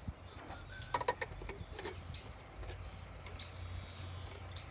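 Quiet outdoor ambience with a few sharp clicks and light knocks, the loudest pair about a second in, and short faint high chirps scattered through.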